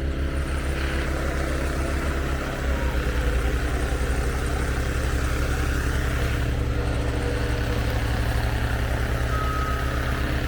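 An engine running steadily, its low pulsing note shifting and getting a little louder about two and a half seconds in.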